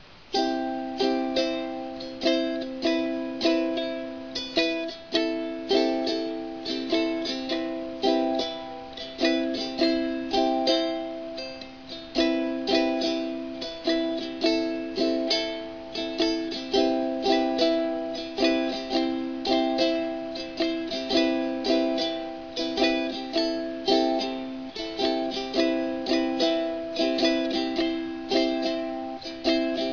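Ukulele strumming chords in a steady rhythm, about two strums a second.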